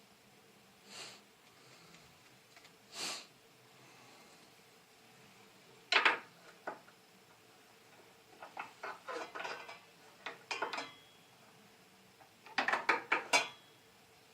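Scattered light metallic clinks and taps, a few single ones and then short clusters of rapid clicks, from a square being set against a miter saw's blade and fence to check that the blade is square.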